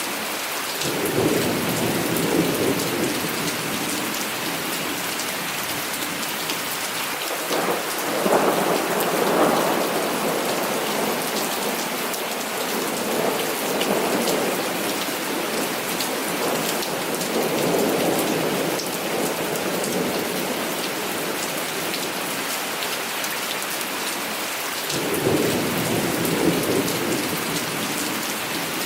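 Heavy rain falling steadily, with distant thunder rumbling in long rolls that swell and fade about five times.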